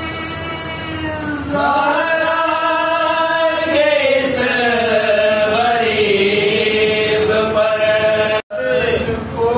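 A man's unaccompanied voice chanting a salam, an Urdu devotional lament for Husain, in long held notes that glide up and down. The sound cuts out for a moment near the end.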